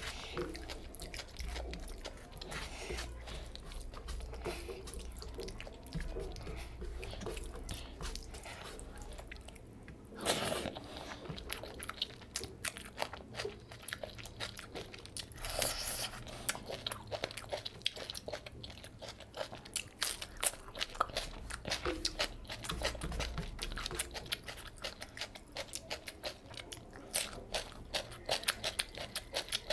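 Close eating sounds of a person eating fish curry and rice by hand: chewing and biting with many short wet clicks and smacks, a little louder about ten and sixteen seconds in.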